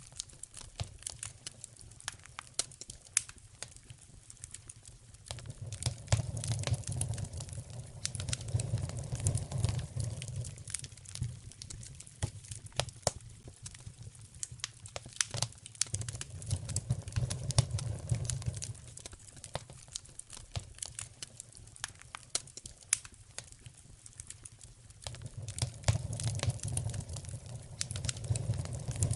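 Wood fire burning in a fireplace, crackling and popping with many sharp, irregular snaps. Under the crackle, a low rumble swells up and dies away three times.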